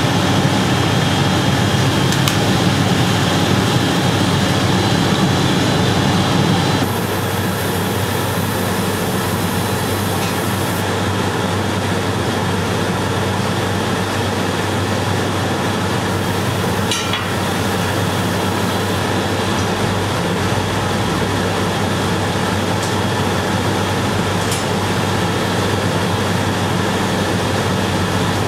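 Steady industrial din of a glassblowing factory floor: glass furnaces and blowers running with a constant hum. The low hum drops a little about seven seconds in.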